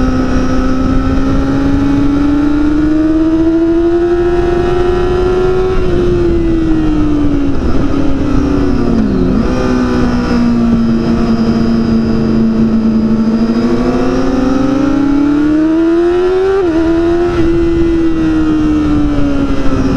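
Yamaha R6's 600 cc inline-four engine at high revs under a rider on track, with wind rushing over the bike. The engine note climbs and falls slowly as the bike accelerates and slows through the bends, dipping briefly about nine seconds in and kinking sharply, as at a gear change, about three-quarters of the way through.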